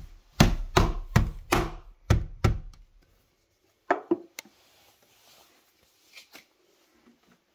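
Claw hammer tapping a plastic UPVC window bead into its clip in the frame: six quick, sharp strikes about two and a half a second, then a couple of lighter knocks about four seconds in and faint clicks near the end.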